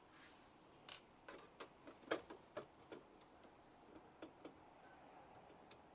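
Faint, irregular clicks and ticks of a screwdriver turning screws out of the plastic underside of a laser printer's case, about a dozen light strikes spread unevenly, the sharpest about two seconds in.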